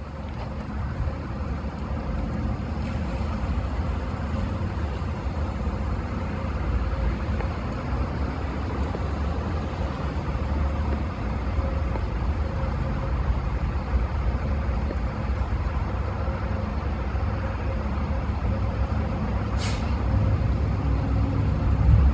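Steady low rumble of vehicle traffic and engines around a parking lot, with one short sharp hiss near the end.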